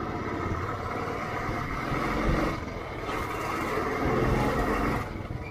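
Royal Enfield motorcycle engine running under way, with rushing road and wind noise on the microphone. About three seconds in, a louder hiss builds and then stops suddenly near the end.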